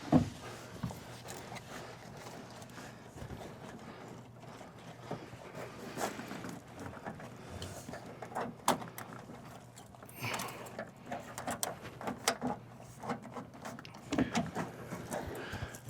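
Faint, scattered clicks and knocks of hand tools and small parts being handled while working on a fuse block and its wiring, over a low steady hum.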